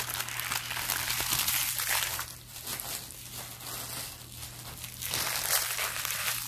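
Rustling and crinkling of trading cards and pack wrappers being handled on a table, busier in the first two seconds and again near the end, over a low steady hum.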